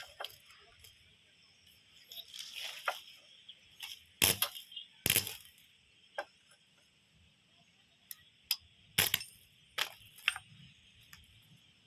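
Iron pieces being handled and struck: a scatter of sharp metallic clinks and knocks, the loudest about four and five seconds in and again about nine seconds in.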